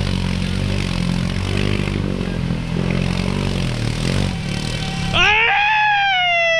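An off-road vehicle's engine running, its pitch rising and falling as it is throttled through a shallow creek. A little after five seconds the sound changes abruptly to a long, falling pitched glide.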